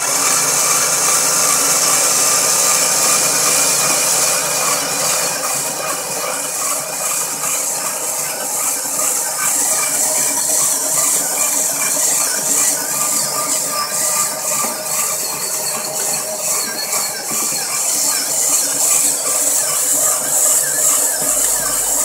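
Electric-screwdriver motors cranking Addi Express knitting machines, running loud and steady with a high-pitched whine over the machines' mechanism. A fast, even clicking becomes plainer after several seconds.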